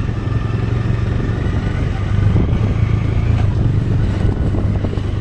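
Motorcycle engine running at a steady speed, a low hum with wind and road noise.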